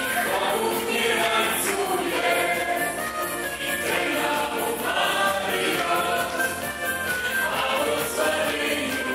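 A woman and a man singing a song through handheld microphones over amplified musical accompaniment, their voices taking turns and joining.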